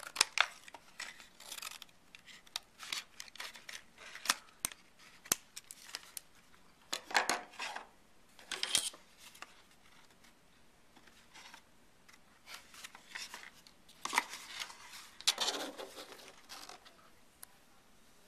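Scissors cutting through cardstock: a scattered series of sharp snips, with short bursts of paper rustling as the cardstock is handled.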